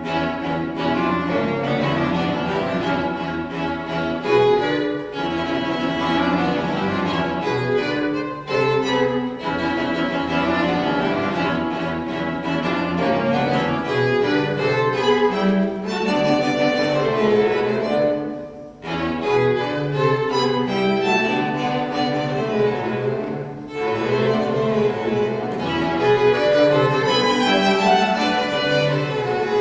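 Live string trio of violin, viola and cello playing a contemporary chamber score, with shifting bowed notes and a brief drop in loudness a little over halfway through.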